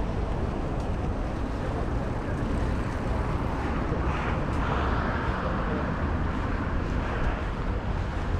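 Busy city street ambience: a steady low rumble of traffic and general street noise, swelling a little about four seconds in.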